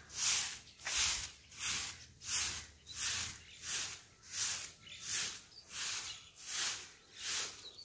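Short handleless grass broom sweeping brick paving, one swish after another at a steady pace of about one and a half strokes a second.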